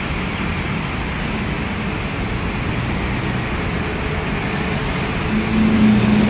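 Steady road traffic from a busy street below, with an MRT Yellow Line monorail train approaching along its elevated beam. A low hum grows louder near the end as the train draws closer.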